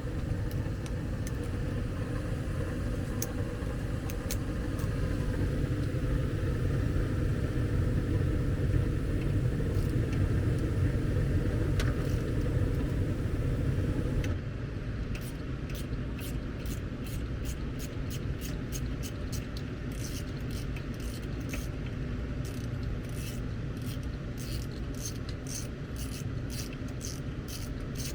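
A gas furnace firing, giving a steady low rumble and hum from the burners and the draft inducer motor. About halfway through the rumble drops slightly, and a run of light, sharp ticks, roughly two a second, goes on to the end.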